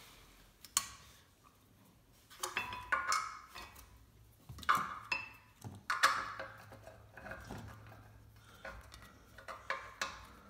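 Hard objects, most likely hand tools, clinking and clattering as they are handled: a series of separate sharp clicks and clanks, loudest about six seconds in.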